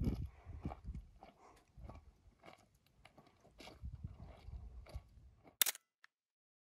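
Footsteps crunching irregularly on dry, gravelly rock trail, with a loud thump right at the start. A sharp click near the end, then a fainter one.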